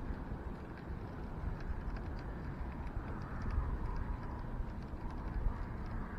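Wind buffeting the microphone in a steady low rumble, over faint, irregular ticking from a baitcasting reel being cranked in a retrieve.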